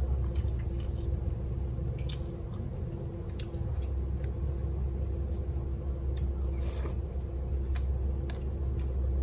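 Eating sounds: scattered small clicks and smacks of biting and chewing, with one brief louder crunch or rustle about seven seconds in, over a steady low hum.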